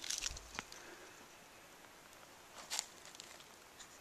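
Footsteps crunching on loose flat stones and dry leaves in a rocky creek bed, in two short bouts: one at the start and one a little under three seconds in.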